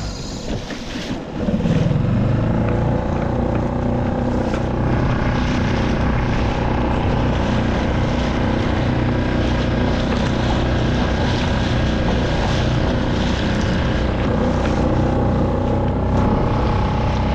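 A skiff's outboard motor running under way, with the water and wind noise of the moving boat. The engine note rises about two seconds in, then holds steady.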